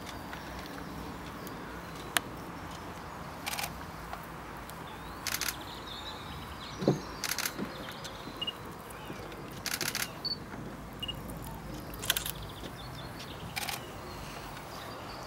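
Camera shutters firing in several short bursts of rapid clicks, a few seconds apart, over steady outdoor background noise.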